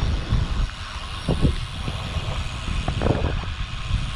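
Wind rushing over the microphone of a camera on a moving road bicycle: a constant low, gusty rumble with a steady hiss over it.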